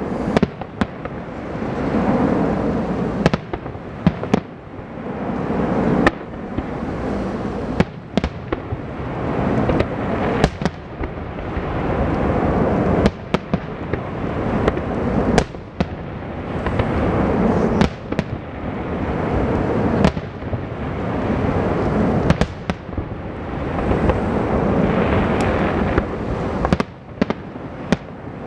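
Aerial firework shells bursting in a fast sequence, with sharp bangs every second or two. Between them a dense rumbling noise swells and fades every couple of seconds.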